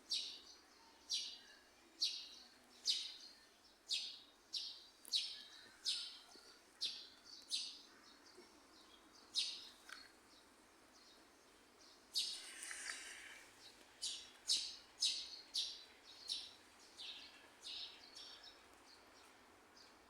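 A bird chirping over and over, short high chirps about once a second, with a pause a little before halfway and one longer, rougher call after it.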